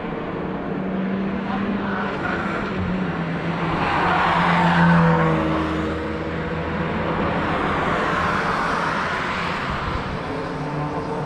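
Cars passing at speed on a racetrack, engines running hard. The loudest pass peaks about halfway through with its engine note dropping in pitch as it goes by, and a second car swells past near the end.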